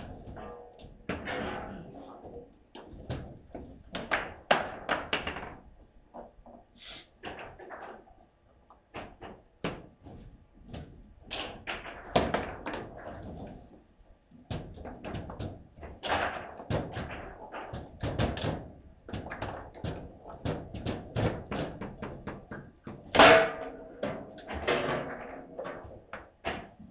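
Table football being played: the hard ball struck by the rod-mounted plastic figures and cracking off the table walls, in quick irregular knocks and thuds, with one hard slam near the end.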